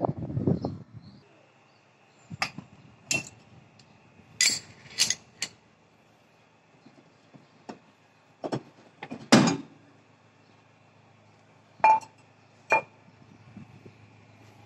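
Metal clanking and clinking as a bearing puller is taken off a steel brake drum and the drum and puller are handled and set down on a tiled floor: a short clatter at the start, then about ten separate knocks, some ringing briefly, the loudest about nine seconds in.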